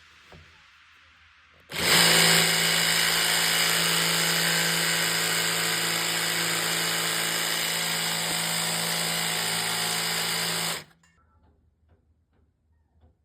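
A power tool running steadily for about nine seconds, starting about two seconds in and cutting off abruptly.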